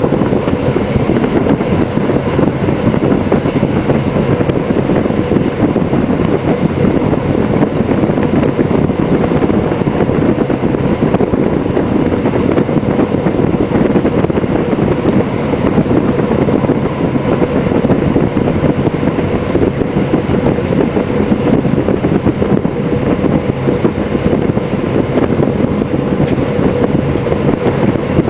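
DB class 628 diesel multiple unit running steadily at speed, heard from the driver's cab: a constant rush of engine and wheel-on-rail noise with a faint steady hum underneath.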